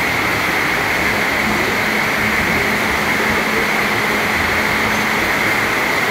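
Steady, even rushing ambience of a busy indoor market hall, with no distinct events standing out.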